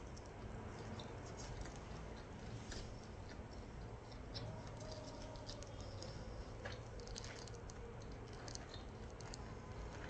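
Quiet, close-up chewing of a mouthful of onigiri, rice wrapped in nori, with scattered small mouth clicks and ticks.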